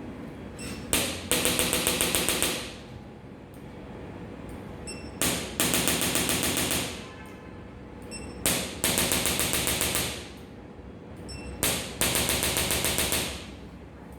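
Handheld electric percussion instrument firing in four bursts of rapid taps, several strokes a second, each burst lasting about one and a half to two seconds with a pause of a second or two between bursts.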